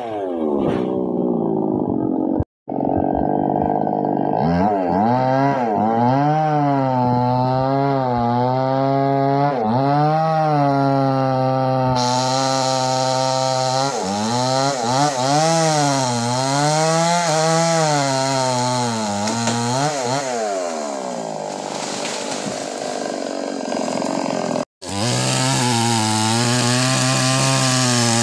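Chainsaw with a 22-inch bar cutting into a mahogany trunk, its engine revving up and down again and again, a cycle every couple of seconds. It settles to a lower, steadier note for a few seconds near the end, and the sound breaks off briefly twice.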